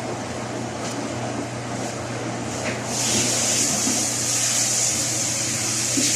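Washing machine running: a steady low motor hum under a hiss of water, with the hiss growing louder about three seconds in.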